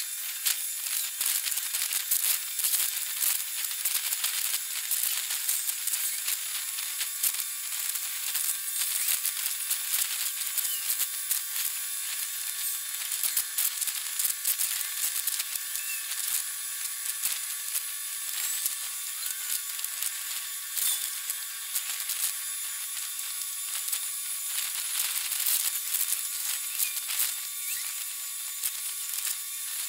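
Steady high-pitched hiss and dense crackle with faint thin whining tones and no low end: dockside sound from a 40x time-lapse, played back sped up.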